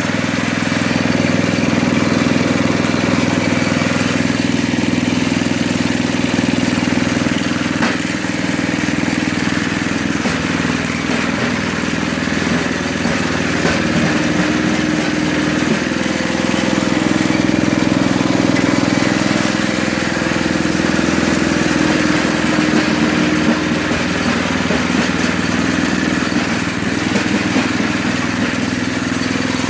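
Toro 521 snowblower's 5 hp Tecumseh engine running steadily while the newly adjusted auger drive engagement is tried out.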